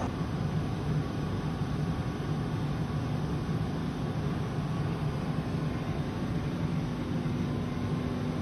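An ÖBB Railjet train standing at a station platform, giving off a steady hum with a low tone running through it and no change in pitch.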